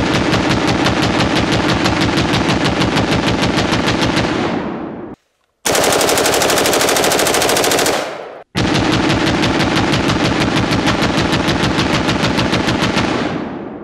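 Full-auto fire from an AR-pattern rifle: long strings of rapid shots, broken twice by short silent gaps, the middle stretch brighter.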